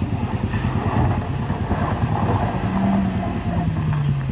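Suzuki minibus engine pulling up a loose, dusty dirt climb with a steady low throb. About three seconds in, a higher note is held briefly, then slides down near the end.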